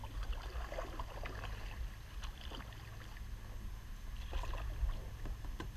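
Kayak paddling: a paddle dipping and water dripping in small, irregular splashes and ticks over a steady low rumble.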